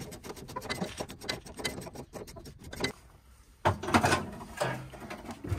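Clicking and rattling of hands and tools working at a car's steel fuel tank from underneath. After a short pause come louder knocks and scraping as the tank comes down onto a wooden board.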